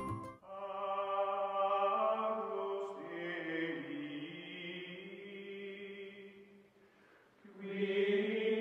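Outro music of voices chanting long held notes, in two long phrases with a short break about seven seconds in.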